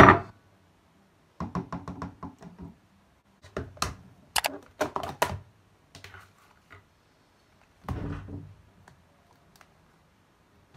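Several bursts of quick knocks and clicks, busiest in the middle, from kitchen things handled on a stone counter: a metal spoon in a plastic blender cup, a glass jar of dark syrup set down, and a plastic box of frozen strawberries.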